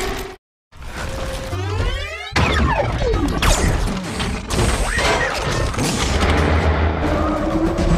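Robot-to-truck transformation sound effect: a dense run of mechanical whirring, ratcheting clicks and clanks, with pitch sweeping up and down. The sound cuts out briefly near the start, and a rising sweep leads into the clatter.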